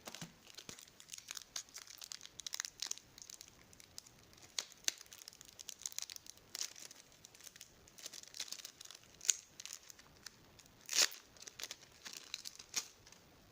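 Trading-card packet's plastic wrapper being torn open and crinkled by hand: a run of irregular crackles, with two louder sharp rips about nine and eleven seconds in.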